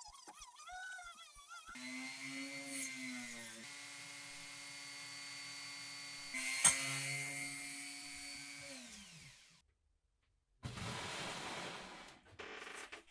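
A small electric power tool's motor running at a steady high speed, with a sharp click about seven seconds in, then winding down and stopping. After a second of silence, rough rubbing or scraping noise.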